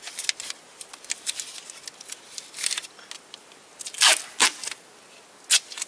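Duct tape being pulled off the roll and torn, with crackling and rustling as it is handled and wrapped around paper labels on the wiring. The loudest rips come about four seconds in and again near the end.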